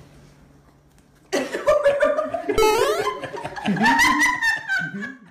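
Laughter, with pulsing and rising pitch, starting after a quiet first second.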